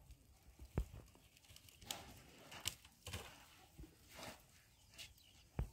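Elephants bathing in a muddy waterhole: scattered short splashes and sloshes of water, a few seconds apart, with a dull low thump about a second in and another near the end.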